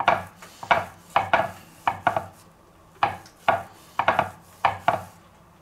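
Gloved hands rolling minced meat into a cevapcici on a wooden cutting board: about a dozen short rubbing strokes against the board, several in quick pairs.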